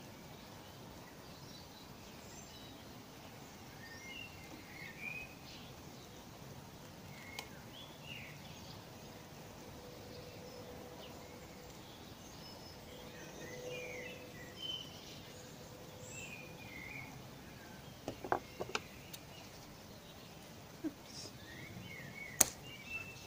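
Small birds chirping sparsely and faintly in the background. Near the end come a few sharp clicks from hand tools, pliers and scissors worked on the puppet's wire.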